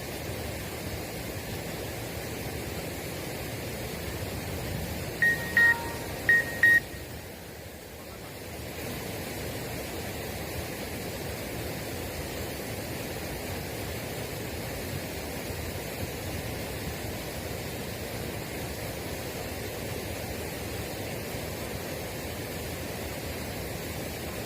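Steady rushing outdoor noise with four short, high electronic beeps in two pairs about five seconds in.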